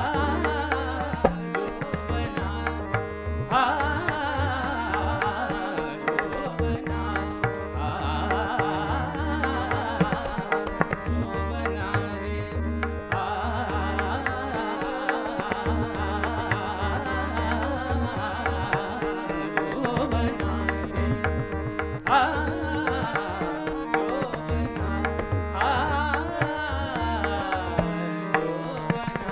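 Hindustani classical music: tabla strokes with a deep bass drum keeping a continuous rhythm over a steady tanpura drone, while harmonium and voice carry a moving melodic line.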